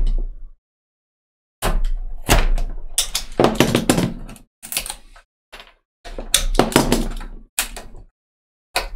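Clusters of sharp knocks, clicks and scraping as glued wooden parts are scored and pried off the bow of a wooden model ship. The sounds start about a second and a half in and come in several bursts.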